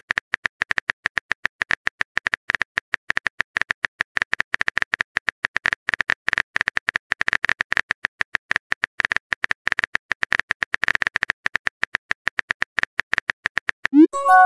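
Rapid, irregular keyboard tap clicks from a phone texting app as a message is typed out. Near the end there is a short rising swoosh, then a chime as the message is sent.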